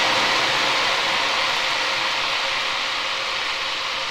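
Ghee with whole spices and chilli flakes sizzling in an aluminium pot after a splash of water, a steady hiss that slowly dies down.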